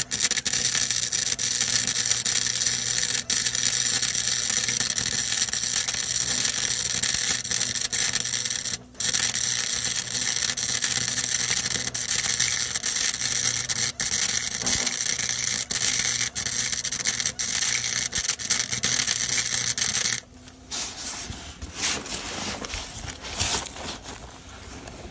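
Electric arc welding: the arc crackles and hisses in a steady run, breaks off briefly about nine seconds in, starts again, and stops about twenty seconds in. Quieter handling noises follow.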